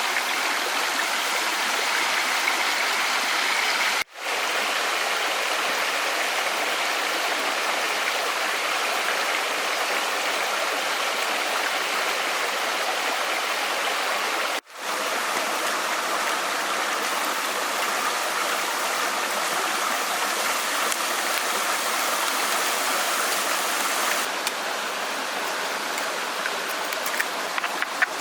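Stream water rushing steadily, with two brief dropouts where the sound cuts out for a moment.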